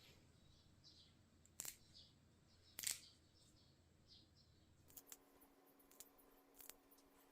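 Faint and mostly quiet: two sharp snips or clicks about a second and a half apart, with faint bird chirps. Near the end, a few light clicks over a faint steady hum.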